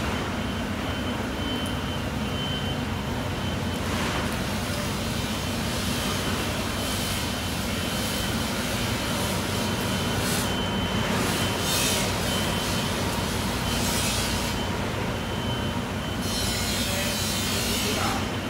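A steady low mechanical drone, like an idling engine, with a thin high steady tone over it. A few short bursts of hiss come through, with a longer spell of hiss near the end.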